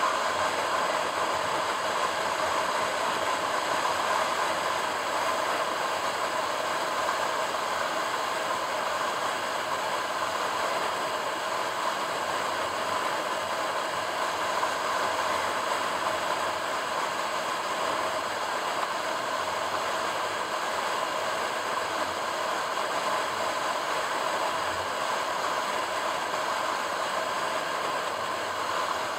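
A car driving steadily along a paved highway: even tyre, engine and wind noise, unchanging throughout.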